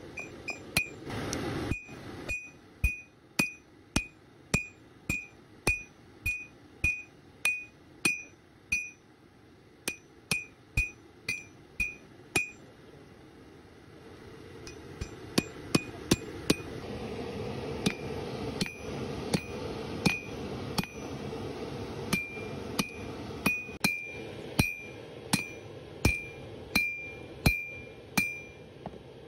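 Hammer blows on a red-hot steel blade on an anvil, about two a second, each with a short ringing clink. The blows pause briefly about halfway through, and a low steady noise rises beneath them in the second half.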